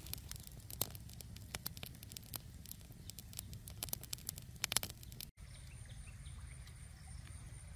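Wood fire crackling and popping under fish grilling on a stick rack: sharp, irregular pops for about five seconds. After a cut the pops thin out and a steady thin high whine sits over a low rumble.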